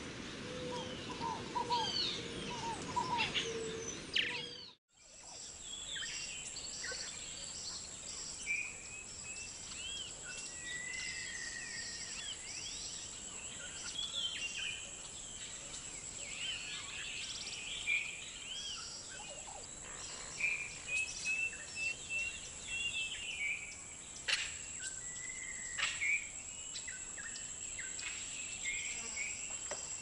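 White-winged Swallow twittering: scattered short high chirps and little trills, over a steady high thin whine. In the first few seconds a different bird gives lower calls, which cut off abruptly.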